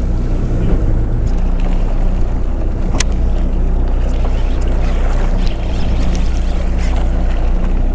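Fishing boat's engine running with a steady low drone, and a single sharp click about three seconds in.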